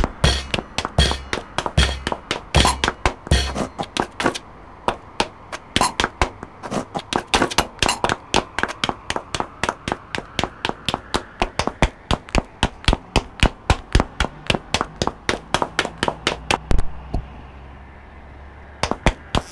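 Rapid sharp clicks or taps, about five a second, with deep low thuds under them for the first few seconds. The clicking stops for about two seconds near the end, then starts again.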